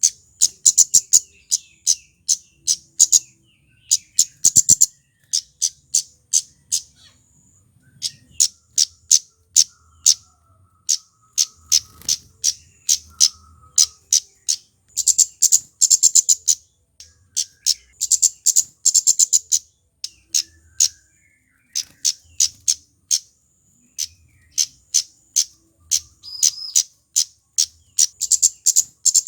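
Male flowerpecker (kemade) calling: quick runs of sharp, very high 'tsit' notes in bursts of several at a time, with short pauses between the bursts.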